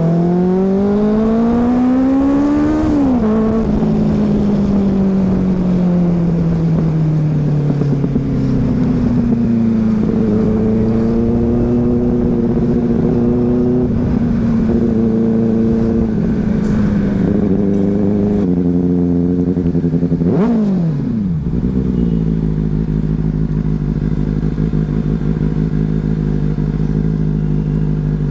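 Superbike engine heard from the rider's seat: it accelerates with a rising pitch for the first few seconds, drops as the throttle is closed, and runs along at a steady pitch. About twenty seconds in it gives one quick blip up and down, then settles to a steady low idle.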